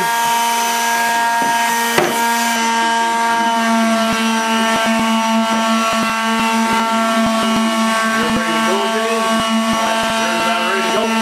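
Woodworking machinery running with a steady, even hum, with scattered clicks and knocks over it, in a loud shop.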